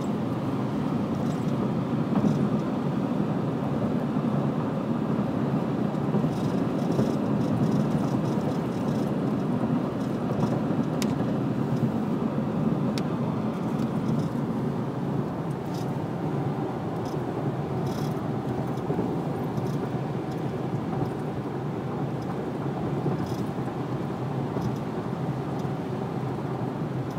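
Steady road noise of a car driving at speed, heard from inside the cabin: tyre rumble and engine hum with no change in pace, and a couple of faint ticks near the middle.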